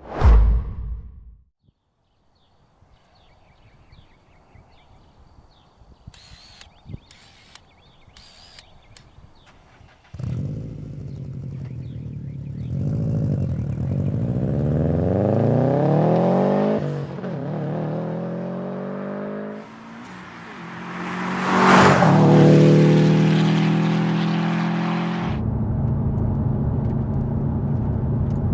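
A 2015 Subaru WRX STI's turbocharged 2.5-litre flat-four through a COBB turbo-back exhaust. After a brief loud sound at the very start and a stretch of near quiet, the engine comes in suddenly about a third of the way through and is revved in rising and falling sweeps. The loudest rev comes about three quarters of the way in, and then it runs steadily.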